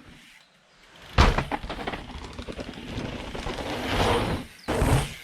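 A hardtail mountain bike being ridden: a sharp thud about a second in, then rough tyre-on-dirt and wind noise that builds, breaks off briefly and comes back loud near the end.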